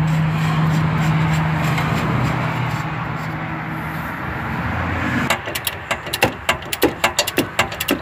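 A steady low hum, then from about five seconds in a hand ratchet clicking rapidly as it runs down the stud nut of a new lower ball joint on a first-generation Toyota Tacoma.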